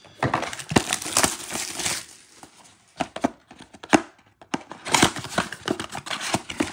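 Crinkling and tearing as a cardboard trading-card blaster box is unwrapped and torn open by hand: a dense crackle for about two seconds, two sharp clicks around the middle, then more crackling as the end flap is pulled open near the end.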